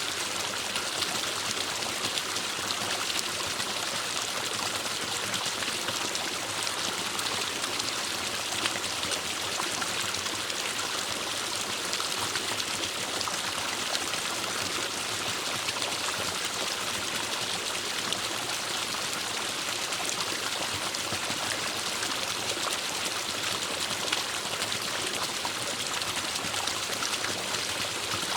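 Forest stream running steadily, water flowing and trickling over rocks.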